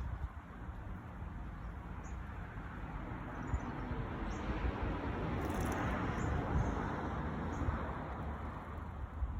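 A broad rushing noise, like a passing car, swells to its loudest near the middle and then fades, while small birds give a few short, high chirps over it.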